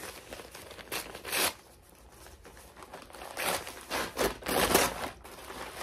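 Kraft paper courier mailer being torn open and handled, with several short tearing and crinkling bursts of paper; the loudest come about three to five seconds in.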